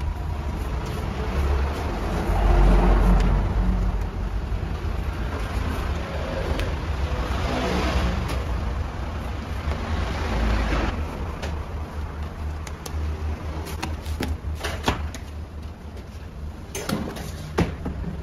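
Low rumbling and rubbing as a large mass of bread dough is pressed and rolled into a long log on a stainless steel worktable, swelling twice, with a few sharp knocks near the end.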